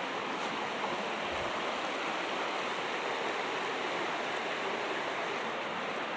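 Steady rushing of a flowing creek, an even noise with no breaks.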